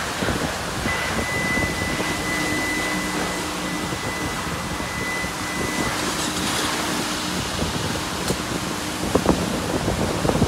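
Steady rushing background noise of a self-service car wash, with a thin high whine held for about five seconds and a few sharp clicks near the end.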